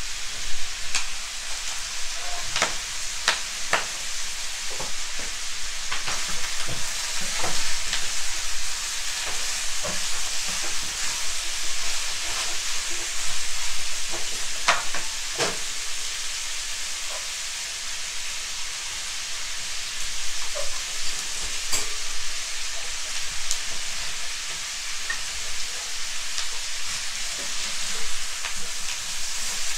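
Pieces of pork belly frying in their own rendered fat in a non-stick pan with no added oil, giving a steady sizzle while they brown. A wooden spatula stirs and scrapes the pan, with scattered clicks and taps.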